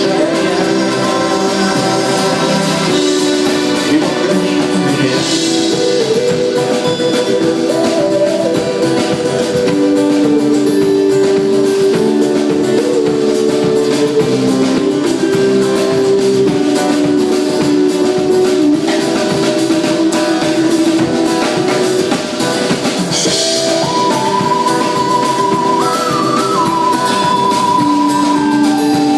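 Live rock band playing an instrumental passage: guitars and drum kit under a sustained melody line.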